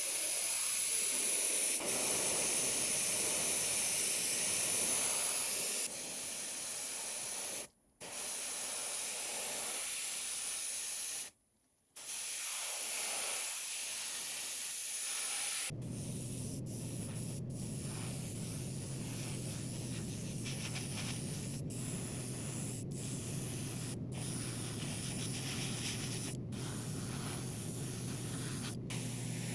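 Compressed air spraying with a steady high hiss, cut off briefly twice. About halfway through it gives way to rubbing, like sanding, over a steady low hum.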